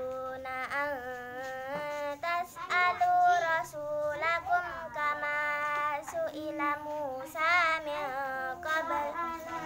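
A young girl chanting Quranic recitation in a melodious tilawah style. She holds long notes with wavering ornaments, and her phrases are separated by short breaths.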